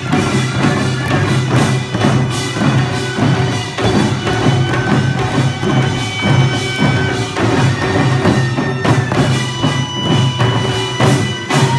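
Korean traditional music: a reedy wind instrument holding long notes over a steady, repeating beat of drums and percussion.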